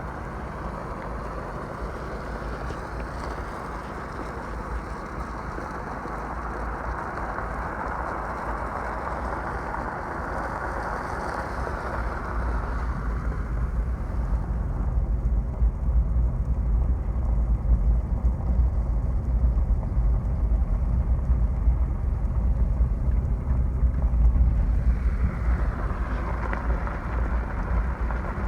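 Steady rushing of spring runoff water. Wind buffets the microphone heavily from about halfway through, drowning the water until near the end.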